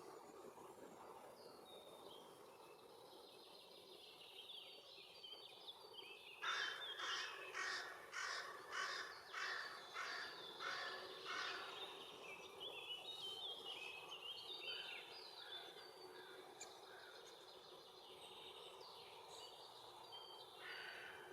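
A bird gives a run of about ten harsh, rasping calls, roughly two a second, lasting some five seconds. Fainter chirps and trills of other small birds sound before and after, over a steady woodland background hiss.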